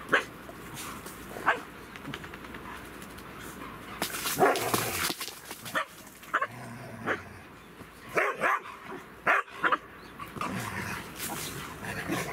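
Several dogs barking and yipping as they play-fight, with about a dozen short barks at irregular intervals, some in quick pairs.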